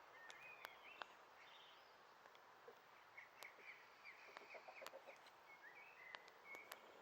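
Faint outdoor hiss with small birds chirping in many short calls, and a few sharp clicks.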